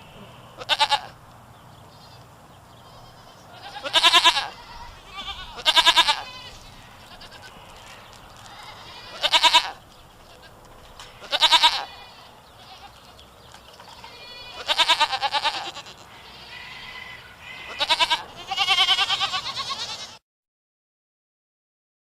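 Goat bleating: about eight loud, wavering bleats spaced a couple of seconds apart, with low steady background noise between them. The sound cuts off abruptly about two seconds before the end.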